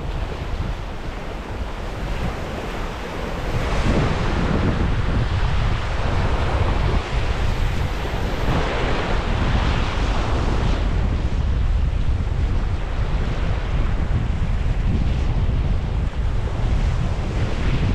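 Strong wind buffeting the microphone with a steady low rumble, over surf washing onto a beach.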